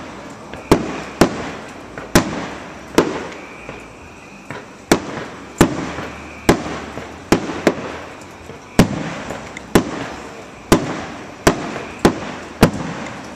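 Aerial firework shells bursting in a steady string of sharp bangs, about one a second, each followed by a fading echo.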